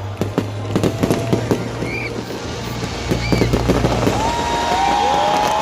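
Fireworks bursting in rapid crackling pops, in two dense clusters over the first four seconds, with short whistling glides between them. Long, high, held tones rise and fall over the last second or so.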